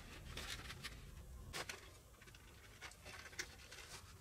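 Faint handling noises of thin wire leads being twisted onto a small plastic radio kit by hand: light scratching and rustling with a few small clicks.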